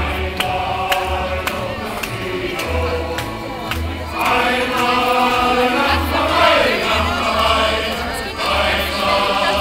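Large male shanty choir singing a German sea shanty, accompanied by a double bass plucking a steady low beat.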